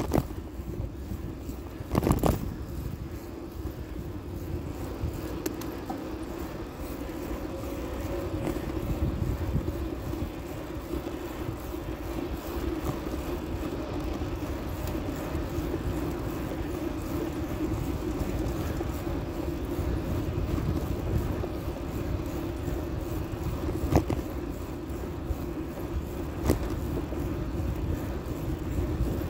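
Riding noise picked up by a phone mounted on a bicycle's handlebar: a steady rumble of wind on the microphone and tyres rolling on asphalt. Sharp knocks from bumps jolting the mount come about 2 s in and twice near the end.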